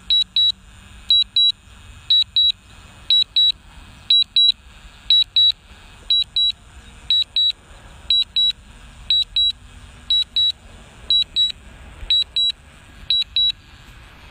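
DJI Mavic Pro remote controller sounding its alert in sharp, high double beeps about once a second, stopping near the end. This is the alert it gives while the drone is returning home.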